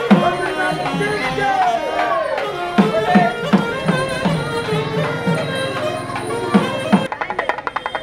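Street procession band music: a reed pipe plays a bending, wavering melody over deep hand-drum strokes. About seven seconds in it cuts abruptly to fast, even drumming on a barrel drum.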